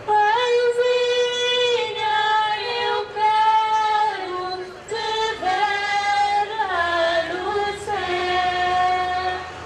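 Women's voices singing a slow hymn, with long held notes that step from one pitch to the next.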